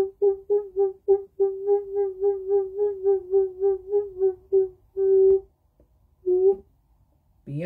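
A woman's voice toning a single 'oo' note, sounded in quick pulses about four a second, then one held note and a short one. After a brief pause, a fuller, louder note begins near the end.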